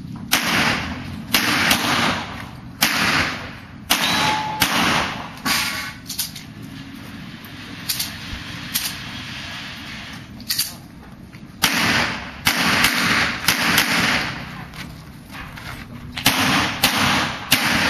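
Pistol shots fired in quick pairs and short strings, the way IPSC stages are shot, each with a brief echo. There is a gap of several seconds in the middle with only faint pops, then more strings of shots near the end.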